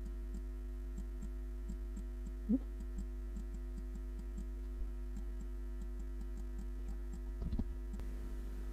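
Steady low electrical hum with faint, regular ticking, about three ticks a second, and a couple of small brief sounds.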